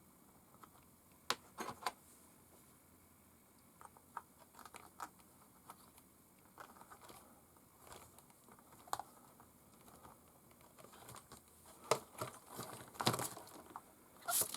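Faint, scattered clicks and taps of a small wrench and tiny metal wheel parts being handled while brass wheel weights are worked onto an Axial SCX24 crawler's front wheels. The clicks are sparse at first and come more often near the end.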